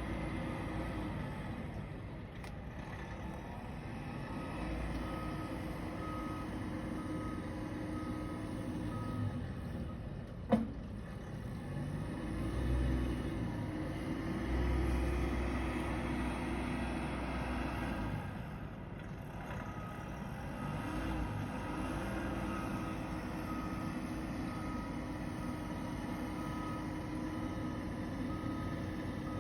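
A truck's reversing alarm beeping at an even pace over a steady engine hum, pausing through the middle and starting again, with one sharp knock about ten seconds in.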